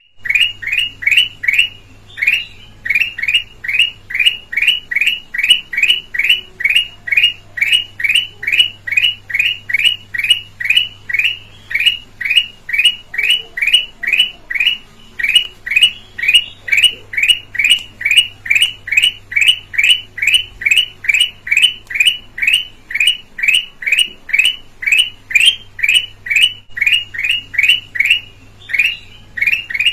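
Kutilang emas (a red-eyed yellow bulbul) calling one short, clear, falling note over and over, about two and a half times a second, without let-up.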